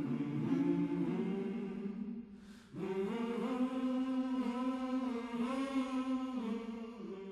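Unaccompanied singing in long held notes, in two phrases: the first fades about two seconds in, and the second begins about three seconds in.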